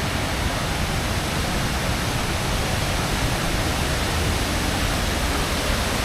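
Steady rush of a waterfall: falling, splashing water making an even, unbroken noise.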